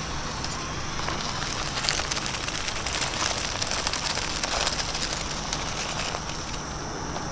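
Radio-control rock crawler climbing over rocks: a steady crunching and crackling of its tyres scrabbling for grip on rock and grit, with a low steady hum underneath.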